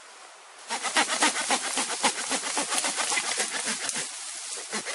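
Machete cutting at the base of a thin cane stalk in a rapid run of short strokes, several a second. It starts under a second in and stops near the end.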